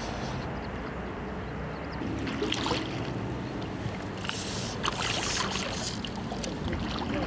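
Shallow river water splashing and sloshing around a wading angler's legs, in irregular bursts that are thickest a little past the middle. A steady low hum runs underneath.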